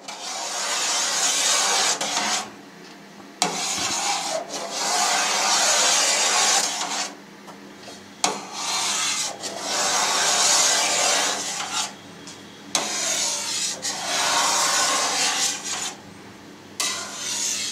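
Long knife blade scraping along a stainless steel pan as it is drawn through set cheese curd, cutting it in strips: five long strokes of two to four seconds each, with short pauses between.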